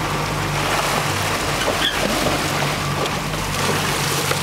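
Sport-fishing boat's engine running at low speed, a steady low hum, under the constant rush and splash of sea water along the hull.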